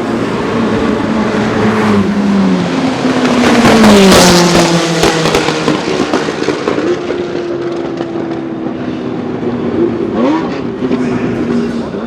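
Ferrari F430 GTC race car's 4.0-litre F131 90-degree V8 at speed, loudest about four seconds in as it goes by, where the engine note drops and the exhaust crackles and pops. Afterwards the note holds steady and fainter, with a short blip of revs near the end.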